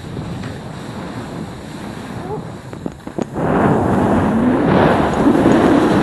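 Wind buffeting the microphone, a couple of sharp clicks, then a little past halfway skis start sliding down the snow slope: a loud, steady scraping hiss of skis on snow mixed with wind rush.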